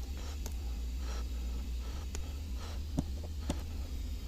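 Small, faint handling clicks and soft rubbing as a rubber seal is worked by hand onto a brake master cylinder piston, over a steady low hum.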